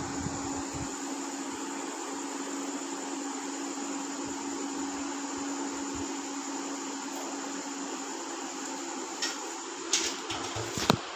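Steady background hum and hiss with a thin high whine running under it, with a few sharp knocks and thumps near the end as the camera is handled and moved.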